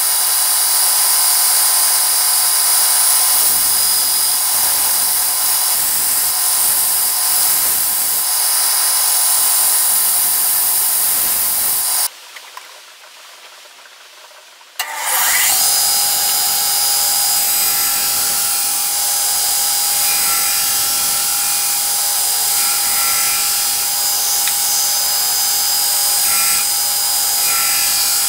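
Belt grinders running with a steady whine while a steel knife blade is ground against the belt, the contact coming and going as the blade is pressed on and lifted. About halfway the sound drops away for a few seconds, then a grinder runs again at a slightly different pitch.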